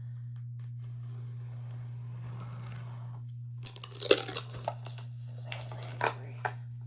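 Cardboard box and packaging being torn and crinkled open, a flurry of sharp tearing and crinkling noises starting about halfway through and a few more near the end, over a steady low hum.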